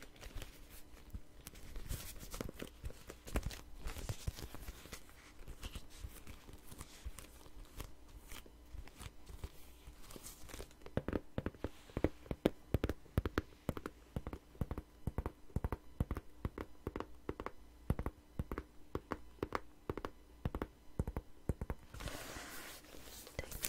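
Fingernails tapping and scratching on a red hard case: scattered taps at first, then fast, dense tapping from about halfway, with a short rustle near the end.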